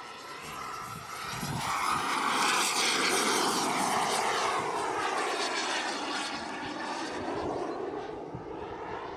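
Turbine engine of a large radio-controlled F-16 model jet in fast flight, growing louder to a peak about three seconds in and then slowly fading, with a sweeping, shifting tone.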